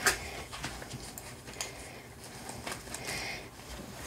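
Tight plastic shrink wrap being cut and peeled off a cardboard box with a knife: a sharp click at the start, then scattered light clicks and crinkling.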